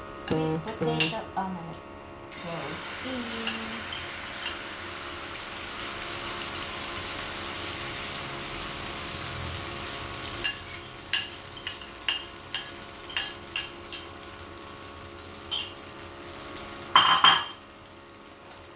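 Beaten egg with sweet potato leaves poured into a hot oiled pan and sizzling. A spoon then taps and scrapes against the bowl several times to empty it, and there is a louder clatter of dishes near the end.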